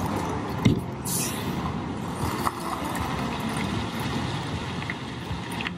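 Engine of a heavy hauling rig running steadily as it slowly moves an oversize load, with a single short knock under a second in.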